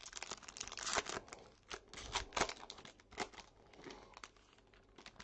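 Plastic wrapper of a baseball card pack crinkling and tearing as the pack is opened. It comes as an irregular run of sharp rustles, loudest about a second in and again a little after two seconds.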